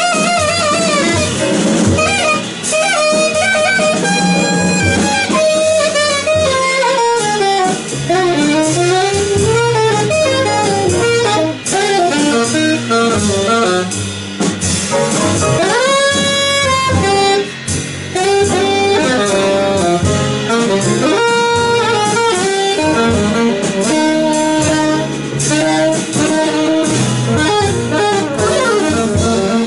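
Live small-band jazz: a saxophone solo with notes that bend and slide in pitch, over double bass and drums, in a slow blues.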